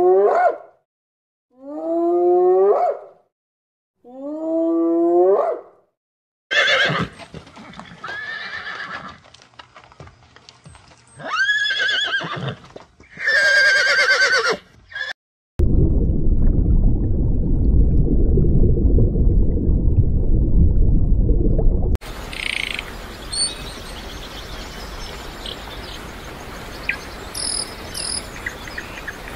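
A series of different animal calls one after another. First come three pitched calls of about a second each, then more calls with high, wavering overtones. About halfway through, a loud low rumbling noise lasts several seconds. It gives way to quieter outdoor ambience with faint high chirps.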